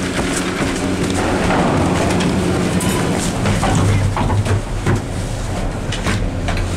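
Doppelmayr eight-seat gondola station running with a steady low machinery hum, with a string of clicks and knocks from about three seconds in as a cabin is boarded and rolls through the station.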